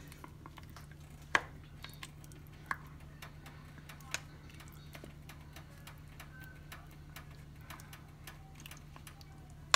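A spoon stirring chicken pieces and potatoes in sauce in a stainless steel pot: light scattered clicks and scrapes against the pot, with three sharper knocks in the first half, over a steady low hum.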